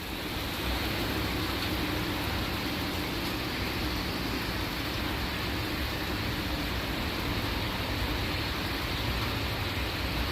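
Heavy rain pouring down during a thunderstorm, a steady even hiss, with a faint low hum under it for roughly the first six seconds.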